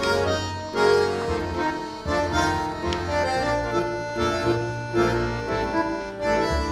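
Background music led by accordion, with a bass line and changing notes.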